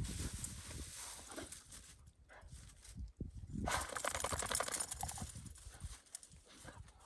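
Dogo Argentinos moving about and playing in snow, their paws scuffing and crunching it, with a louder run of rapid crunching and rustling in the middle.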